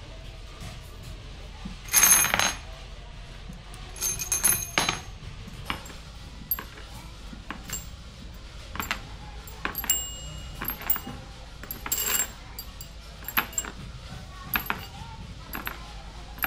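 Small metal padlock parts clinking and clanking against each other: irregular sharp metallic clicks with a short ringing tail. The loudest cluster comes about two seconds in and a second one about four seconds in, over a steady low hum.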